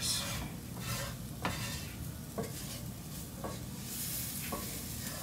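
Wooden spatula stirring and scraping vegetables and flour in a sizzling frying pan, working the stuck bits off the bottom. Short scraping strokes about once a second over a steady sizzle.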